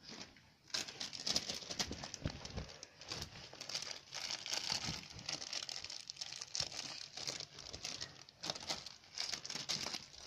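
A dog chewing and tugging at a blanket: irregular rustling and crinkling of the fabric with many small clicks, starting just under a second in.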